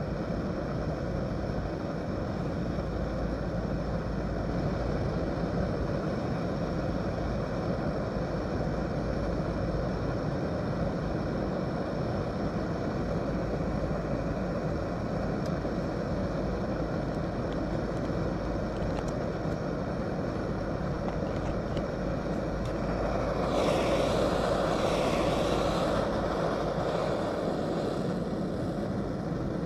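Primus OmniFuel stove burner hissing steadily on canister gas under a frying pan of eggs, with the eggs frying. A louder hiss swells for about two seconds near the end.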